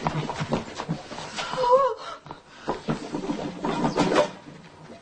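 Laughter and excited non-word vocal sounds from a small group of people, with a short wavering cry that rises and falls about two seconds in.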